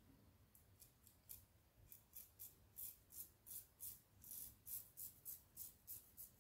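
Laugar Skogsrå double-edge safety razor cutting through beard stubble in quick, faint, short strokes, about three a second.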